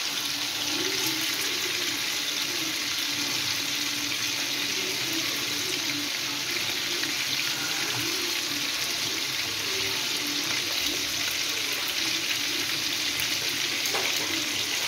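Marinated chicken breast pieces sizzling steadily as they shallow-fry in hot oil in a pan, while tongs turn them.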